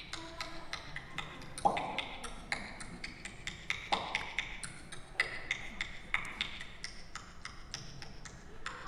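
Quick, uneven clicking or ticking, about three to four ticks a second, with a few deeper knocks among them.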